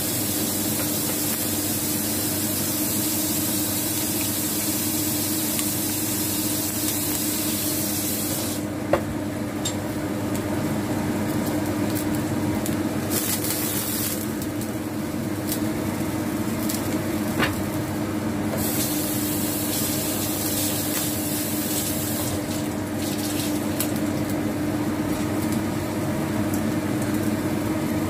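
Chopped greens steaming and sizzling under a glass lid in a pan on a gas burner: a steady hiss whose higher part drops away for several seconds in the middle. Two short ticks, about a third of the way in and again past halfway.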